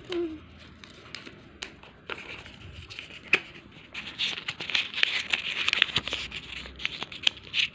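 A banknote being crinkled and pushed into the narrow slot of a plastic piggy bank: a few scattered small clicks at first, then from about four seconds in a dense crinkling rustle with many little ticks.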